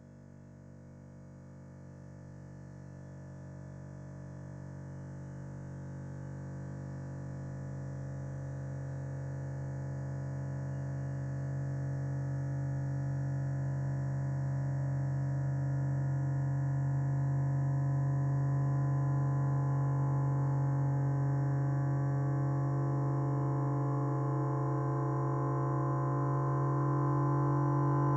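The 'bruh' meme voice clip time-stretched into a long, steady drone: a low hum with a stack of overtones that holds one pitch and swells gradually louder.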